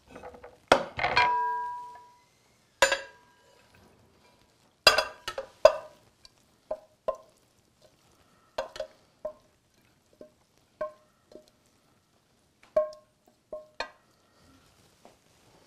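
Pasta being tipped and pushed out of a stainless-steel skillet onto a ceramic plate: a string of irregular clinks and knocks of the pan and utensil against the plate and pan, many ringing briefly.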